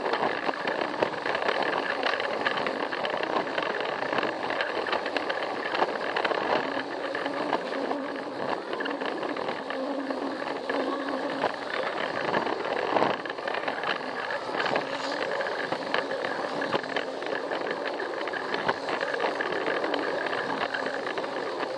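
Plarail battery-powered toy train running on plastic track, heard from on board: its small motor and gearbox whirring steadily with a constant fine clatter of wheels over the track.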